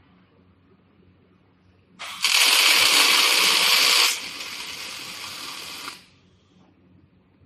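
Automatic scaffolding-crossbar welding machine's welding arc, a harsh even hiss. It starts sharply about two seconds in and is loud for about two seconds, then drops to a quieter hiss for two more. It cuts off about six seconds in.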